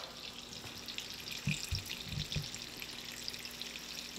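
Breaded mutton snapper fillet shallow-frying in vegetable oil in a cast-iron skillet: a steady light sizzle with fine crackles. A few soft low knocks come in the middle.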